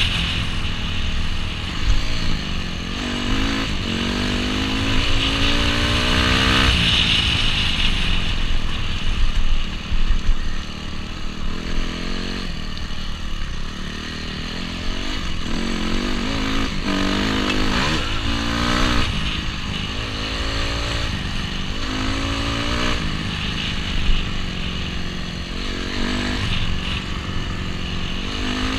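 Honda CRF250R dirt bike's single-cylinder four-stroke engine running under way on a trail, revving up and falling back again and again as the throttle is worked.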